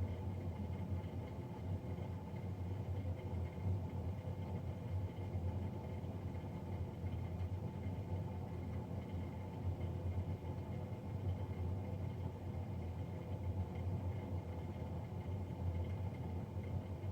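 Navien NCB-240 combi boiler's blower fan running with a loud, steady low drone and a faint higher whine above it; the noise is abnormally loud for the fan.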